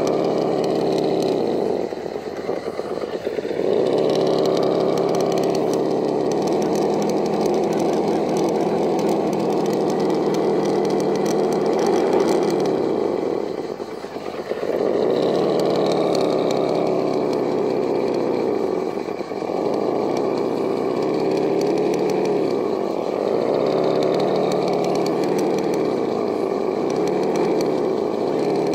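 Electric motor and gears of a Vaterra Ascender RC rock crawler whining steadily as it creeps over rocks. The whine dips briefly several times and picks back up.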